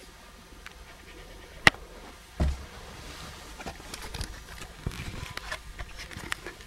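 A sharp click a little under two seconds in, a low bump just after, then scattered light clicks and rustling: handling noise as a hand-held camcorder is moved and turned around.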